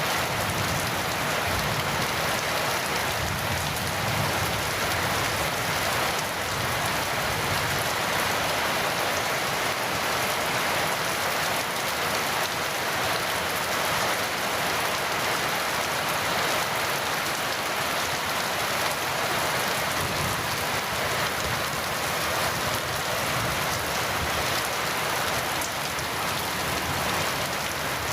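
Heavy rain falling steadily on surfaces, an even, unbroken patter.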